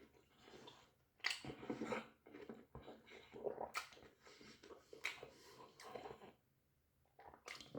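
A person chewing and biting into a doner kebab: irregular wet bites and chews, pausing briefly near the end.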